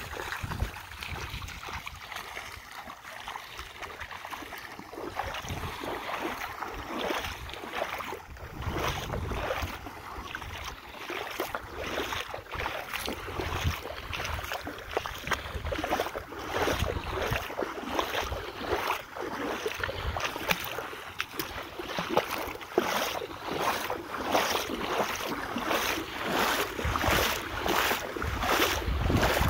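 Feet wading through shallow sea water: sloshing, splashing steps that grow louder and more regular toward the end, about two splashes a second, with wind buffeting the microphone.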